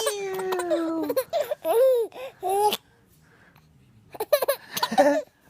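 A baby laughing: one long high squeal that slides slowly down in pitch, then a run of short giggles. After a pause of about a second, another burst of choppy giggles comes near the end.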